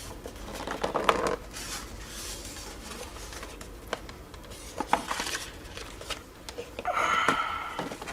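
Rustling and light knocks of a package being handled and unpacked, with a few sharp clicks in three short spells; the last, near the end, is the loudest.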